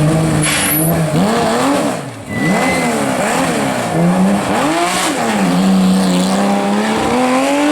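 Historic rally car engine driven hard, its revs rising and falling sharply again and again through gear changes, with a short lift off the throttle about two seconds in and a longer pull near the end.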